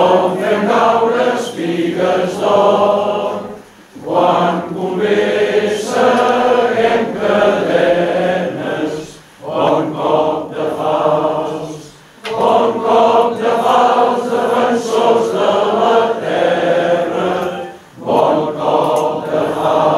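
Many voices singing a song together, in long sustained phrases with brief breaks between them.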